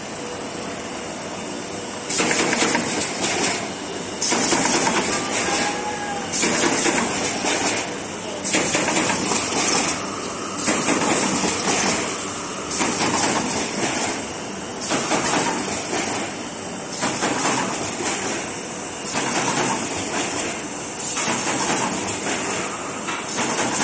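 Automatic corrugated carton partition assembly machine running, with a loud noisy burst of machine noise repeating about every two seconds as it cycles. The first couple of seconds are quieter and steady.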